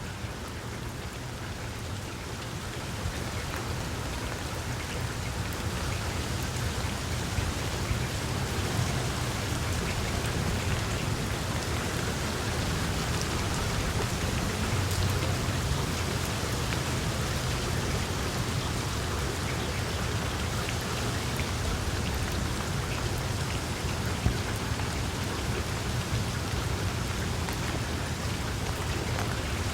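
Steady rain falling on tree foliage, with separate drops ticking on the leaves over a low rumble.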